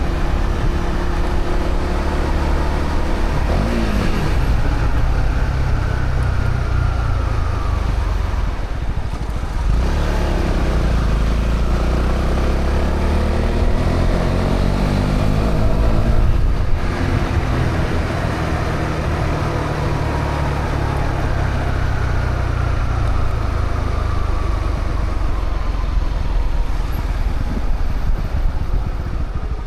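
Honda CB125R's single-cylinder engine, stock exhaust, running on the road. It climbs in pitch under acceleration from about ten seconds in, with brief drops at gear changes near ten and seventeen seconds in.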